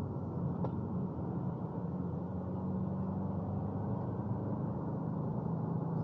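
2022 Subaru WRX under way at a steady speed, heard from inside the cabin: the steady low drone of its 2.4-litre turbocharged flat-four engine mixed with tyre and road noise.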